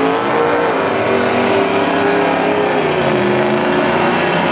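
Dodge Dakota drag truck's engine revving, its pitch rising about half a second in, easing down around three seconds, and climbing again at the end.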